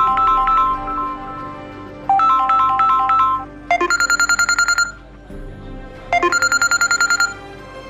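Samsung Galaxy A50s ringtones being previewed: a short chiming melody plays twice, then about four seconds in a different ringtone phrase of fast, evenly pulsing high notes plays twice.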